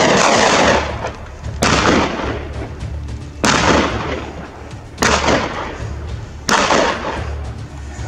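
Four gunshots from hunting guns about one and a half seconds apart, each followed by a long rolling echo off the mountainside.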